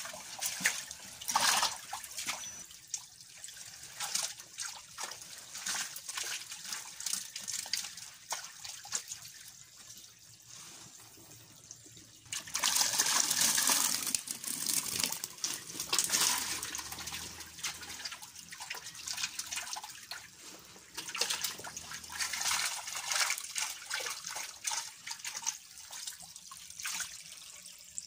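Shallow pond water splashing and trickling as tilapia are scooped with a hand net, with irregular splashes throughout. About halfway through comes a louder gush of a couple of seconds as water and fish are tipped from the net into a bucket.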